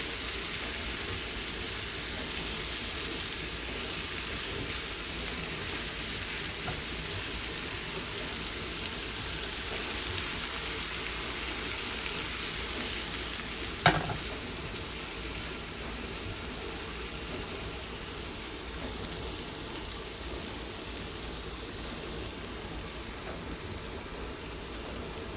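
Chicken sizzling steadily in oil and lime juice in a hot pan as it sautés. A single sharp knock about halfway through.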